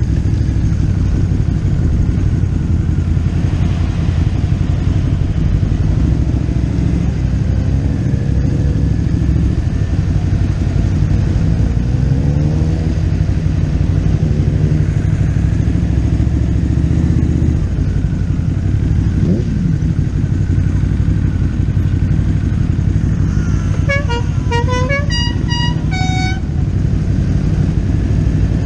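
Motorcycle engine running steadily on a ride, with its pitch rising a few times as it speeds up. Near the end, a horn gives a quick run of short toots at several different pitches, like a multi-tone musical horn.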